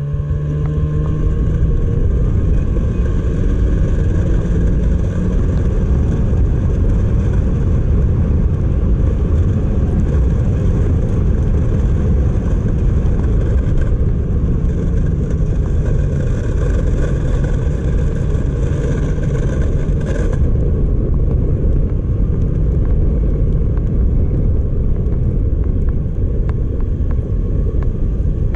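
Snowmobile engine running steadily at trail speed, heard from the rider's seat after a brief rise in revs at the very start, with a constant hiss of track and air noise. About two-thirds of the way through, the higher hiss drops away while the engine carries on.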